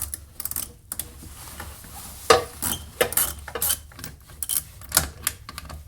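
Irregular sharp metallic clicks and clinks of a 5/16 socket wrench backing out the screws that hold a Jeep Wrangler TJ's heater blower motor, several a second, the loudest about two seconds in.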